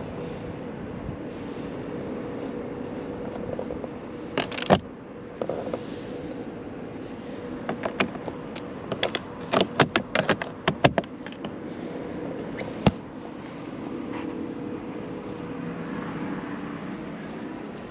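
Sharp plastic clicks and rattles as a hinged cover under the lower dashboard switches of a Kia EV6 is pulled open and handled. A couple of clicks come early, a rapid cluster follows in the middle, and a single click comes later, over a steady faint hum.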